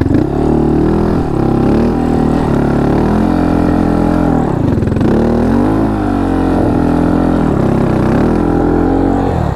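Honda Monkey 125's single-cylinder four-stroke engine running under changing throttle as it is ridden, its pitch rising and falling over and over, dropping sharply about five seconds in before picking up again.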